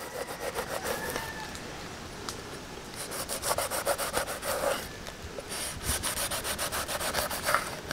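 Large kitchen knife sawing back and forth through the skin and flesh of a whole batfish, scoring cuts into its body: three runs of quick rasping strokes.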